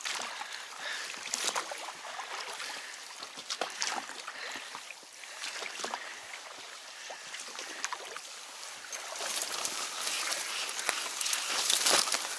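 An inflatable rubber boat being rowed through water, with small splashes and knocks of the oars. Near the end reed stems rustle and scrape along the boat as it pushes into the reeds, louder and hissier.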